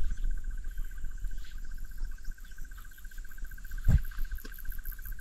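Insects, crickets among them, trilling steadily in the bush: one fast, even pulsing trill, with fainter rapid chirping higher up, over a low steady rumble. A short dull thump comes about four seconds in.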